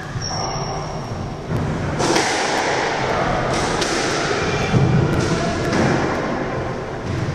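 Squash rally: the ball is struck by rackets and smacks off the court walls, several sharp thuds a second or so apart.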